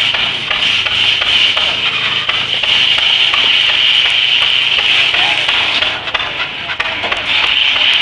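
Dull-toothed 52-inch circular sawmill blade cutting through a small walnut log, a loud steady rasping hiss that drops for about a second near six seconds in and then comes back. The blade is turning at only about 300 rpm, well under its 500 rpm, driven by a small 6 hp Fairbanks Morse engine working hard under the load, with a low steady hum beneath the cut for the first half.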